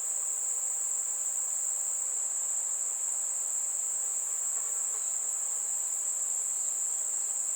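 Chorus of insects, such as crickets or cicadas, keeping up one steady, unbroken high-pitched drone.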